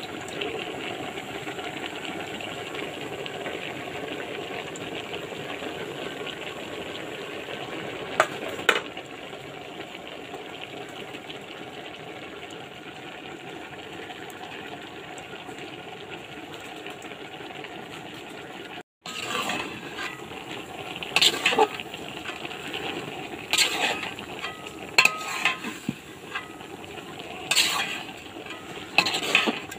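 Fish and vegetable stems cooking in a steaming pot with a steady sizzle. After a cut about two-thirds of the way in, a utensil scrapes and clinks irregularly against the pot as the mixture is stirred.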